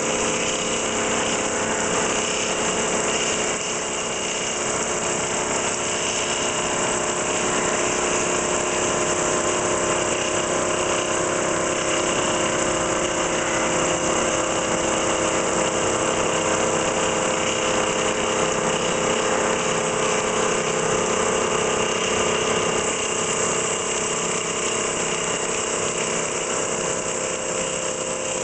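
FPT Ronin CNC milling machine thread-milling the end of a locomotive dry pipe: a steady machine hum with several held tones over an even hiss of coolant spray, unchanging throughout.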